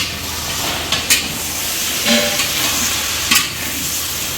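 Potatoes and vegetables for a curry frying and sizzling in oil in an uncovered pan while being stirred, with a steady hiss and sharp clicks of the spatula against the pan about a second in and again past three seconds.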